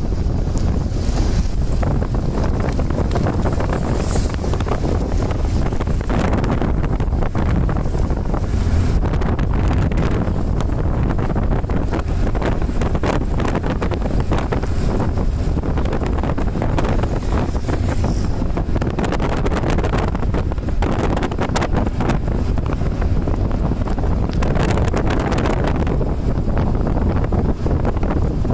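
Heavy wind buffeting the microphone of a moving vehicle, over a steady low road rumble.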